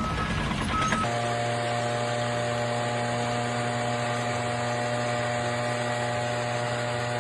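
Two short high beeps, then about a second in a steady machine hum with a low drone sets in and holds unchanged.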